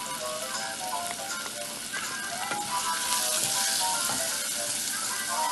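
Chopped onion, tomato and spices sizzling as they fry in hot oil in a pan, the sizzle swelling about three seconds in. Light background music plays under it.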